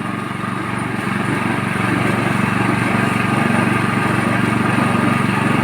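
Coconut milk press machine running with a steady motor drone, getting a little louder about one and a half seconds in.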